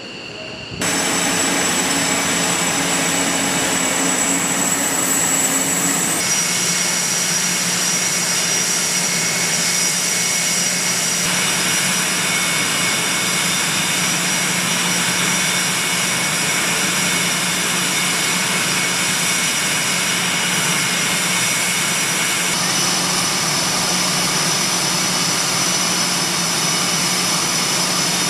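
F/A-18 Hornet jet engines running on the ground: a loud, steady whine with high whistling tones that starts abruptly about a second in, the tones shifting in pitch a few times.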